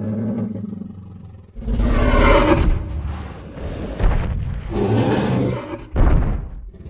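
Tyrannosaurus rex roar sound effects: a low rumbling growl, then a loud roar about one and a half seconds in, with two more roars later, each of the last two opening with a sudden heavy thump.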